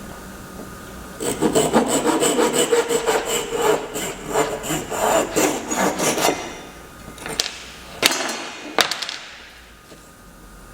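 A hand tool worked quickly back and forth on wood, about four strokes a second for some five seconds, then three sharp knocks.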